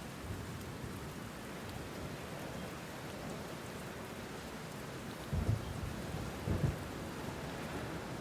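Steady rain hiss with two short low rumbles of thunder a little past halfway, about a second apart.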